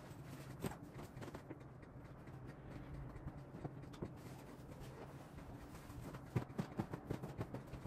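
Faint handling noise from bedding and pillows being moved about on a bed: soft rustling with scattered small knocks and taps, more of them in the last couple of seconds, over a low steady hum.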